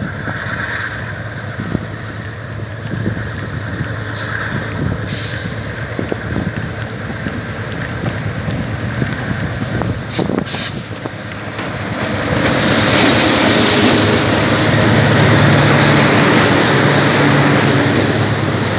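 Freight train's diesel-electric locomotives approaching and passing close by, the engine rumble growing much louder about twelve seconds in as the lead locomotive draws level. A few brief knocks come around a third and just over halfway through.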